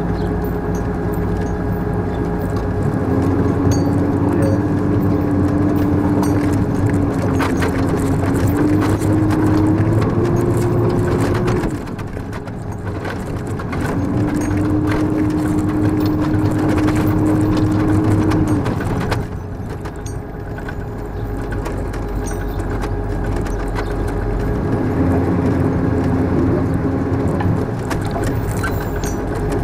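Military patrol vehicle driving, its engine and drivetrain running with a whine that steps up and down in pitch as it speeds up and slows, easing off twice.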